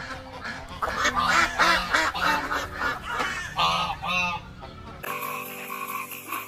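A flock of mallard ducks quacking, a quick run of loud, harsh calls one after another. Near the end the sound cuts suddenly to steady background music.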